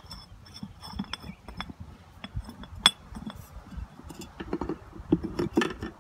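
Metal parts clinking and tapping as the oil filter is worked out of the Farmall tractor's filter housing: a string of irregular sharp clinks with a light ring, the loudest about three seconds in, and duller knocks near the end.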